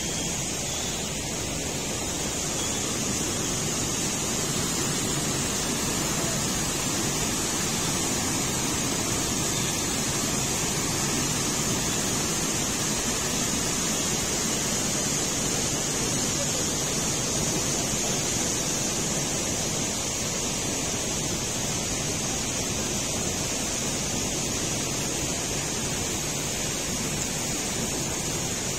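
River water rushing steadily through a narrow rock gorge: a continuous, even noise with no breaks, and a steady high hiss over it.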